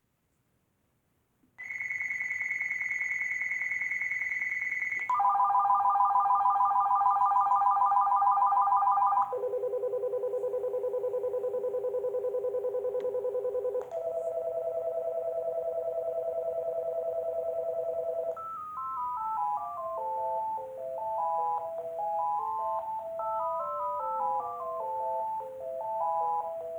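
Uniden D3097 phone playing through its ringtones one after another. After a moment of silence comes a high trilling ring, then three lower trilling rings in turn, each about four seconds long. A quick stepping melody follows.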